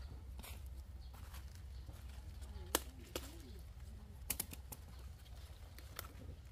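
Bell pepper plants handled by hand: a few sharp snaps and clicks as peppers are grasped and picked from their stems, over a steady low hum.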